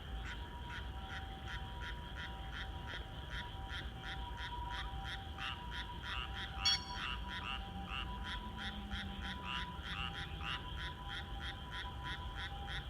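Frogs calling in a steady rhythmic chorus, about three to four calls a second, with one sharp click about halfway through.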